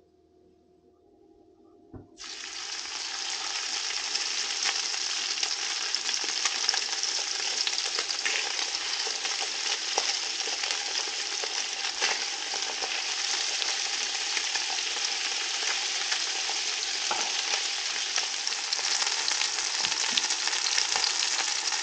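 Floured bream fillets frying in hot oil in a frying pan: a steady sizzle full of small crackles and spits, starting suddenly about two seconds in.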